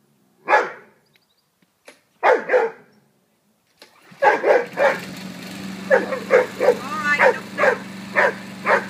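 Rhodesian Ridgeback barking at a lawnmower: single barks at first, then rapid repeated barks, about two a second, with one rising yelp. About four seconds in, the petrol lawnmower's engine is pull-started and keeps running steadily under the barking.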